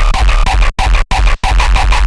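Loud electronic dance music with heavy bass and a fast pulsing beat, which cuts out completely three times in quick succession around the middle, a stutter or scratch-like break.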